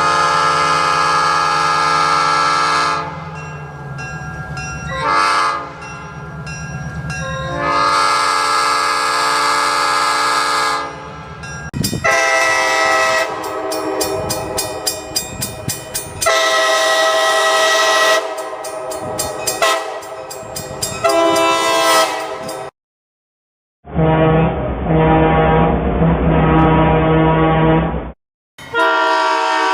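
Train horns sounding a run of long and short blasts, cut together from several separate recordings, over the low rumble of the locomotive.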